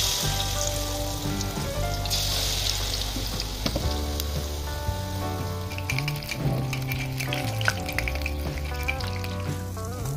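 Batter-coated eggs deep-frying in hot oil, sizzling and bubbling, strongest in the first few seconds and then easing off. Background music plays throughout.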